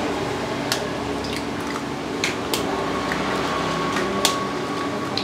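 Raw eggs being cracked and dropped into a tub of dry kabab masala mix: a few sharp taps of shell at irregular moments and soft wet plops, over a steady background hum.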